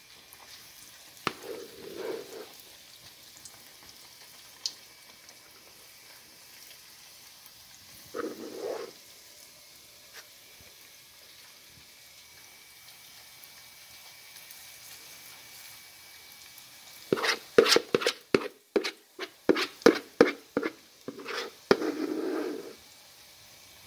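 Deep-frying oil with a faint steady sizzle, and a metal spoon scraping olliebollen batter around a plastic mixing bowl. The scraping comes in short bouts at first, then near the end in a quick run of sharp taps and scrapes against the bowl.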